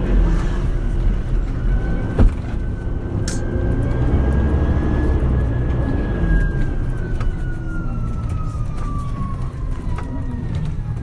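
MAN Lion's City Hybrid city bus under way: a low diesel engine note under the high whine of its electric drive, the whine rising a little and then falling steadily in pitch through the second half as the bus slows. A single sharp knock about two seconds in.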